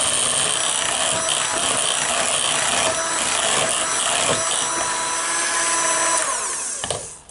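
KitchenAid electric hand mixer running steadily, its beaters whirring through cake batter; near the end the motor winds down and stops.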